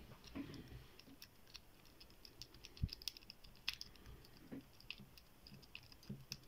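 Faint, irregular metallic clicking and ticking of a city rake being worked in the keyway of an IFAM padlock, the pins chattering as the rake scrubs across them; the lock does not open.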